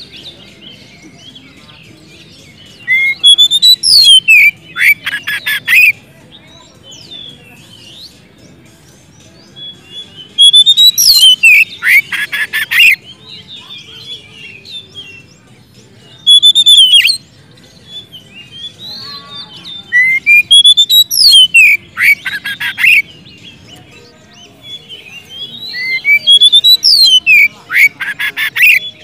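Oriental magpie-robin (kacer) singing in loud bursts of gliding whistles that run into rapid harsh rattling notes. There are about five such phrases a few seconds apart, with softer twittering between them.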